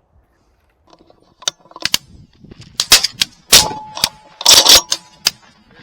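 A ragged run of shotgun shots, about ten in under four seconds, some close and loud and others weaker, from several shooters firing at once.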